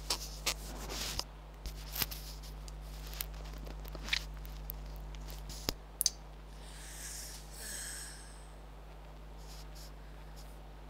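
A few scattered sharp clicks from a computer keyboard and mouse, over a steady low electrical hum, with a soft hiss about seven seconds in.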